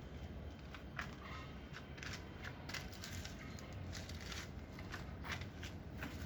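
Short, irregular scraping or rubbing strokes, a few a second, over a steady low hum.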